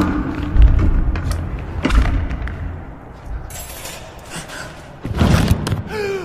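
Heavy thuds over a low rumble, then two short bursts of rustling as the pages of an old paper document are handled and turned.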